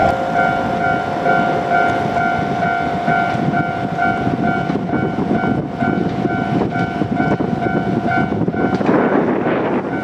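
Japanese level-crossing alarm ringing its rapid repeating ding over the running of a JR Kyushu KiHa 47 diesel railcar pair, with a louder rush of train noise near the end.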